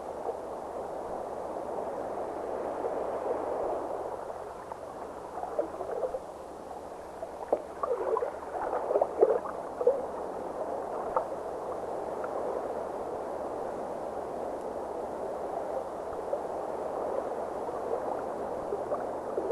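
Steady rush of moving water with gurgling bubbles, the bubbling busiest in the middle stretch.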